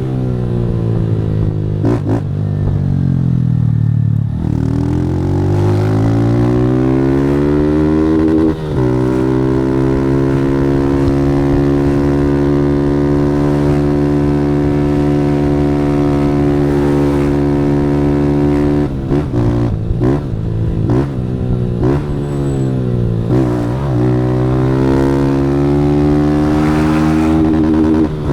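Motorcycle engine through a Fortuna Trioval aftermarket exhaust, being ridden hard: the pitch drops, climbs to a short break at a gear change, then holds steady and high for about ten seconds. Toward the end it dips and rises several times in quick succession before climbing again.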